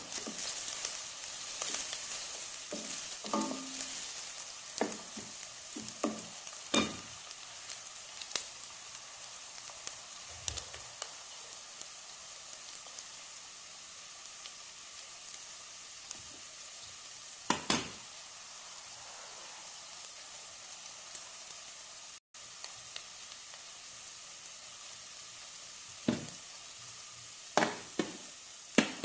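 Chopped onion and garlic sizzling steadily in hot oil in a stainless steel pot, with a wooden spoon stirring and knocking against the pot, most often in the first several seconds and again near the end.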